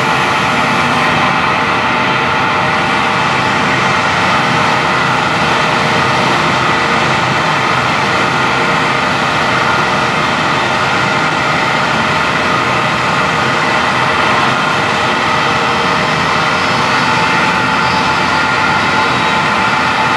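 Steady, loud running noise of spray-painting equipment: a water-curtain spray booth's fan and water together with a siphon-feed air spray gun in use. The noise holds even throughout, with a faint hum of several steady tones under the rush of air.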